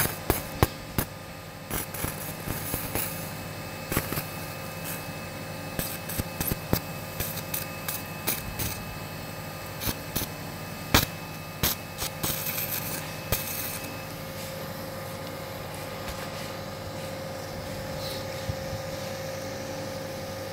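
Surgical instruments clicking and tapping during open surgery, with many sharp clicks in the first dozen seconds and few after. Under them runs a steady hum with a faint constant tone.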